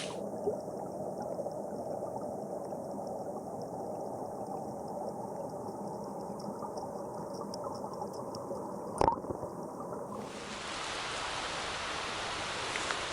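Mountain stream water running and gurgling over rocks in a steady rush, with one sharp click about nine seconds in. Near the end the rush turns brighter and hissier.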